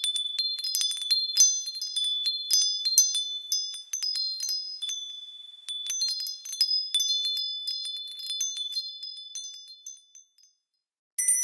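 Small high-pitched Christmas bells chiming, many bright ringing notes struck irregularly and overlapping, dying away about ten seconds in. After a moment of silence a different single bell rings sharply just before the end.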